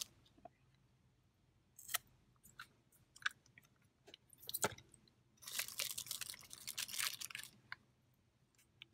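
Close-miked chewing of a mouthful of cheeseburger, heard as scattered wet mouth clicks, then a denser crackling stretch about five and a half seconds in that lasts about two seconds.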